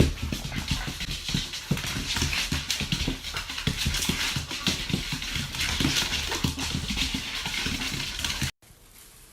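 A dog whimpering over a busy run of quick knocks and taps, cutting off suddenly near the end.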